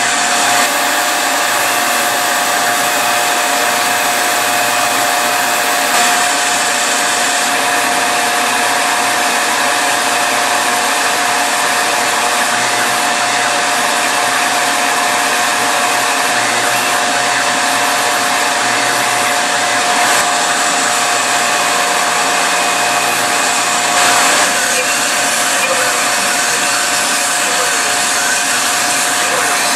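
Tormach PCNC 770 CNC mill running, its spindle whining at a steady pitch as a thin end mill cuts a block of polystyrene insulation foam.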